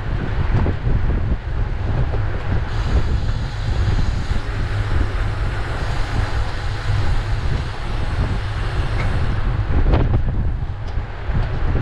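Wind buffeting the microphone of a camera on a racing bicycle at race speed, with a rushing hiss of air and tyre on road. The hiss grows brighter about three seconds in and eases again near nine seconds, and a single sharp knock sounds about ten seconds in.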